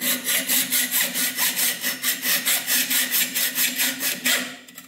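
Hand hacksaw cutting a workpiece clamped in a lathe's three-jaw chuck, in quick, even back-and-forth strokes, about five a second, stopping shortly before the end.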